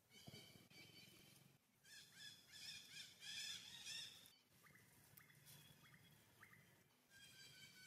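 Faint high-pitched bird calls: held whistled notes, a warbling stretch around the middle, then a few short chirps.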